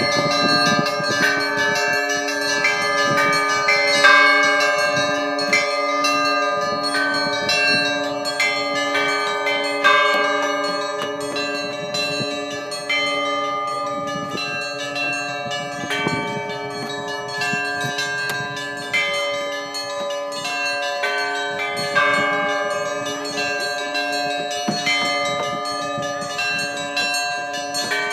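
A peal of several church bells rung together. Smaller bells are struck in quick, repeating patterns over the long ring of a deeper bell, with a louder stroke now and then.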